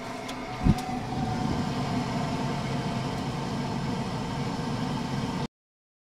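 Gas heater burner lighting with a few clicks and a loud low thump just under a second in, then burning steadily with a low rumbling hiss that cuts off suddenly near the end.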